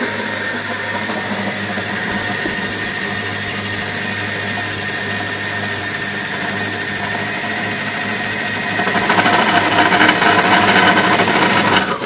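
Arçelik food processor motor running steadily as its blade grinds roasted peanuts into peanut butter. It grows louder and rougher about nine seconds in, then is switched off and stops abruptly at the end.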